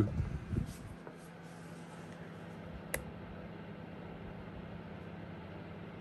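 Sharp microwave oven running with a steady hum and fan noise while it heats a charge of silver to melting. A single sharp click about three seconds in.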